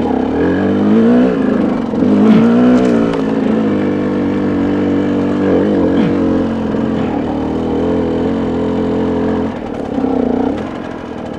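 Dirt bike engine running as the bike is ridden along a trail, its pitch rising and falling with the throttle. It eases off about two seconds before the end.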